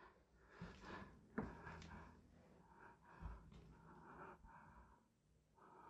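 Near silence, with a few faint, brief knocks and rustles.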